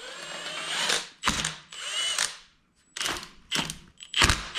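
Ratchet wrench with a 12 mm socket and extension clicking in several short bursts as bolts are worked loose on a Toyota 1JZ engine, with a brief pause a little past the middle.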